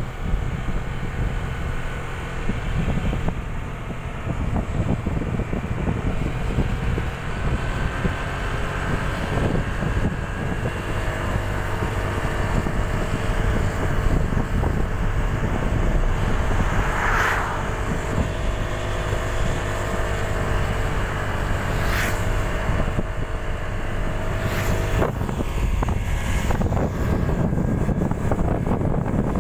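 Wind buffeting the microphone on a moving motorcycle, with the motorcycle's engine humming steadily underneath. A few short sharp clicks come in the second half.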